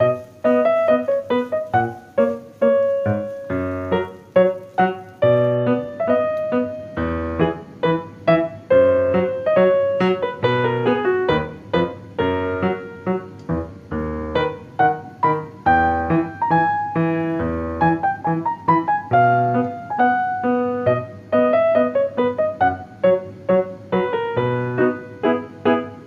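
Background piano music: a steady run of melodic notes, starting suddenly at the beginning.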